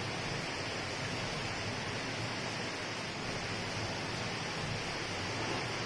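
Steady, even background hiss of room noise, with no distinct events.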